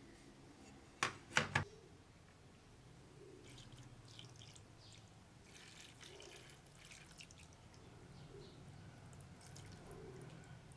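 A steel cleaver clanks twice against a metal tray as it is laid down, about a second in. Acid is then poured over it into the tray, a faint, uneven splashing and trickling of liquid.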